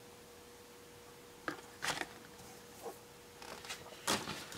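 A few short, faint rustles and taps from hands handling the cardboard toy box and plastic doll, the loudest near the end, over a faint steady hum.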